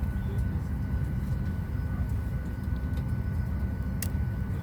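Steady low rumble of a Boeing 737-800's cabin air supply while parked at the gate with the engines not yet started, with a thin steady high whine over it and a couple of faint clicks near the end.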